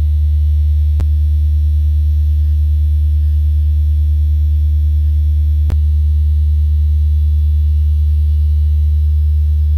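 A 75 Hz sine tone from a tone generator, played loud and steady through a stereo speaker under a piano soundboard, driving the board in its second vibration mode. Two short clicks cut in, about a second in and again near six seconds.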